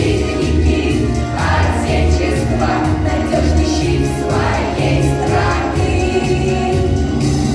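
A song performed by a group of children's voices singing together over a backing track with a steady, repeating bass beat.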